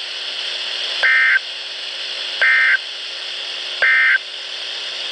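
NOAA Weather Radio SAME digital data bursts, received on a Midland WR-100: three short, high-pitched buzzy bursts about 1.4 s apart, the End of Message code that closes a severe thunderstorm warning broadcast. Steady radio hiss runs underneath.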